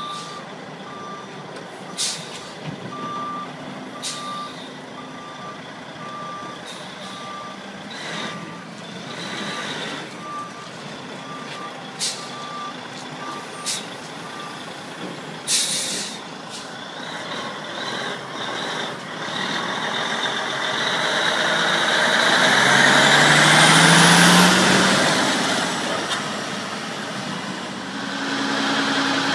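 Diesel dump truck with a CAT 3406B engine manoeuvring: its reversing alarm beeps about once a second through the first half, with short sharp air-brake hisses. Then the engine grows louder as the truck pulls away, peaking with a rising whistle about three-quarters of the way through.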